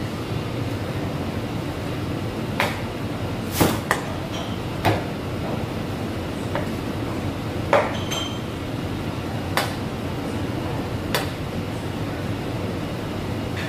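Kitchen work sounds: about eight irregular sharp knocks and clinks of utensils, pans and a blade on a board, a couple with a brief metallic ring, over a steady rushing kitchen background noise.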